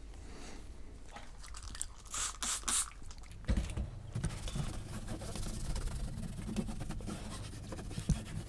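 A cloth wiping and rubbing the plastic case of a Commodore Plus/4: a few short scuffing strokes about two seconds in, then steady rubbing with light knocks of the case being handled.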